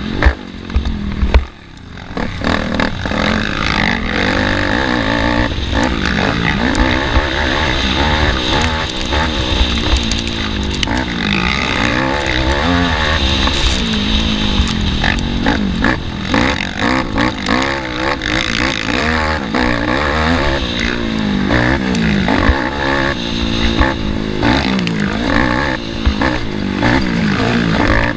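Racing ATV engine heard from onboard at race pace, revving hard and dropping off again and again as the rider works the throttle and gears. The throttle drops off briefly about one and a half seconds in.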